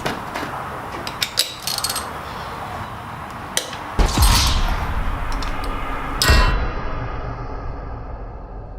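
Hand tools clinking and clanging on metal while working loose a stuck coolant temperature sensor on an engine: several sharp metallic clicks, then two heavier knocks with a dull thud about four and six seconds in.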